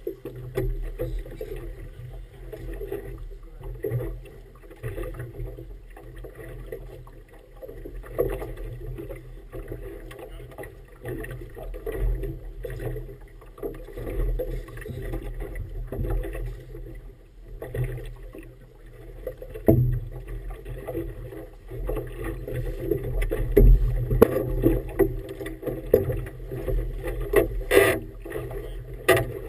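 Choppy river water slapping and splashing against the hull of an inflatable boat, with wind buffeting the microphone. It comes in irregular slaps that grow heavier in the second half, with a sharper slap near the end.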